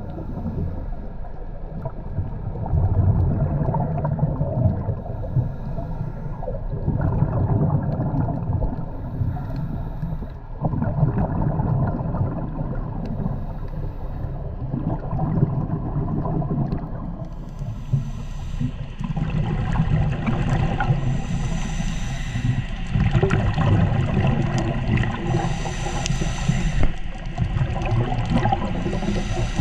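Scuba divers' exhaled bubbles gurgling underwater over a steady low rumble. From about two-thirds of the way in, brighter hissing bubble bursts come every few seconds.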